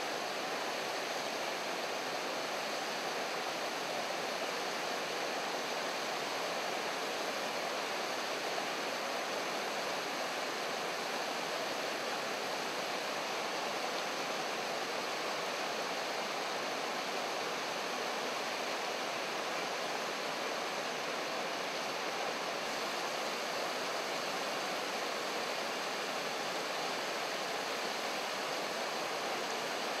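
Water tumbling over a low rocky cascade into a shallow river, making a steady, even rush.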